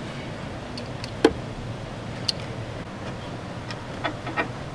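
A few scattered small clicks and taps of plastic parts as an LED headlight bulb and its plug are fitted into the headlight housing, the sharpest about a second in, over a steady low hiss.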